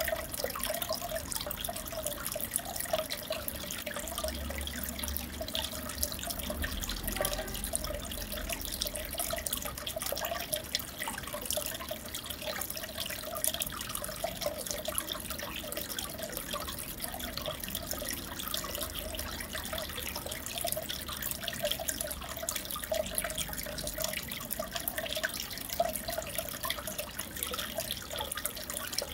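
Aquarium water trickling and bubbling steadily, with a constant patter of small drips and splashes.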